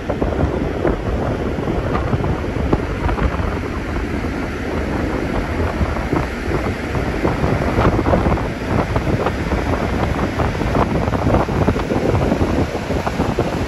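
Wind buffeting the microphone on the open deck of a moving ferry: a loud, gusting rush, heavy in the low end and crackling with rapid pops from the wind hitting the microphone.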